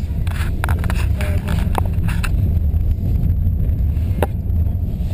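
Steady low road rumble inside a moving car's cabin on the highway, with scattered sharp clicks, most of them in the first couple of seconds and one more about four seconds in.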